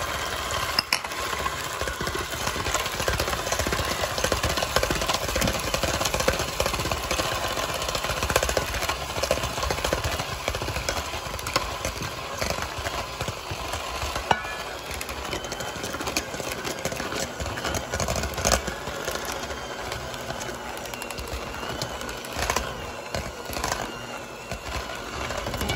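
Electric hand mixer running steadily, its beaters churning thick choux pastry dough in a stainless steel bowl, with frequent small knocks, as the last egg is beaten in.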